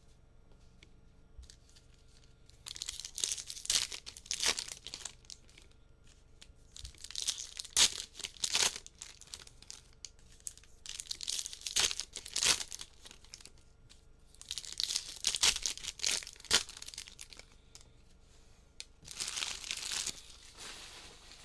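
Trading card pack wrappers being torn open and crinkled by hand, in five separate bursts of tearing and crackling with short pauses between.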